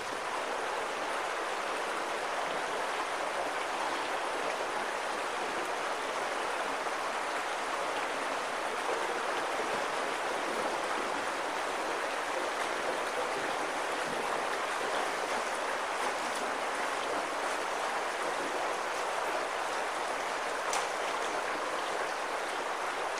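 Shallow river water flowing steadily, a continuous rushing sound that stays even throughout.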